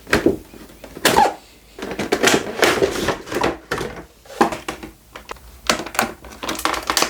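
Cardboard box and plastic packaging being handled and opened: a string of short clicks, knocks and rustles.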